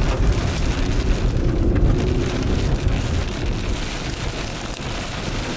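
Rain and strong rear-flank downdraft wind beating on a moving storm-chase vehicle, a dense rushing noise with a heavy low rumble and scattered sharp hits of drops. It eases slightly near the end.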